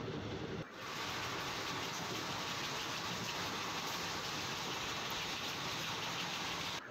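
Steady rushing noise of an Indian Railways express train running at speed, heard from a coach window, with a brief drop about half a second in where the footage cuts.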